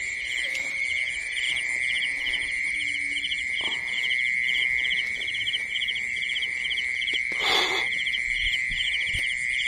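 Chorus of insects and frogs: a steady high-pitched drone with a short pulsed call repeating about two to three times a second over it. There is a brief rustle about seven and a half seconds in.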